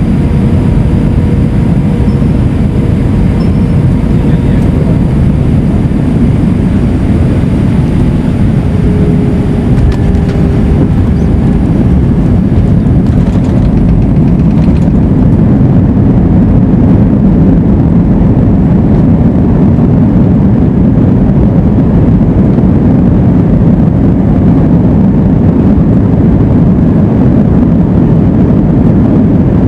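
Airbus A320 cabin noise during landing: a loud, steady rumble of engines and rushing air, with faint steady whines in the first third. From about halfway it grows a little louder and duller.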